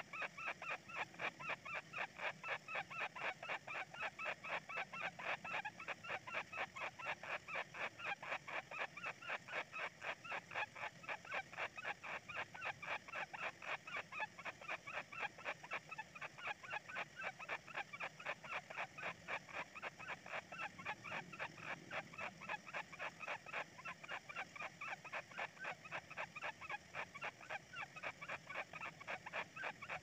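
Kingfisher nestlings in their burrow calling nonstop: a fast, even run of short, high calls, several a second.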